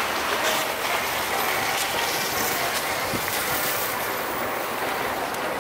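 Steady outdoor crowd ambience: a constant wash of distant voices and movement from many people on a busy open square, with a few faint clicks and knocks.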